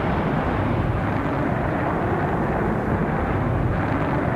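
Jet engines of a Boeing YB-52 bomber prototype running with a steady rush of noise as the aircraft rolls away down the runway.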